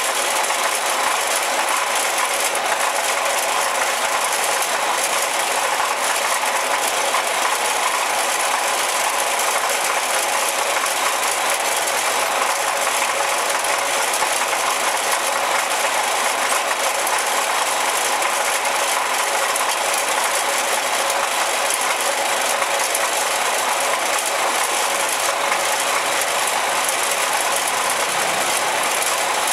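Steady, even running noise of a train, with no separate clacks, horn or other events standing out.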